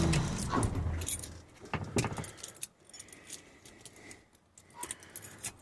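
Scattered light clicks and rattles at irregular intervals, with quiet gaps between them.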